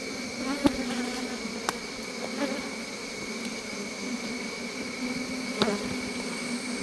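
Honey bees buzzing in a steady hum around an opened hive. A few light clicks come over it.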